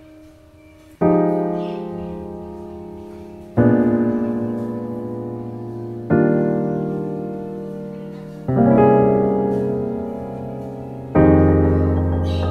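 Background piano music: slow, sustained chords struck about every two and a half seconds, each left to fade before the next.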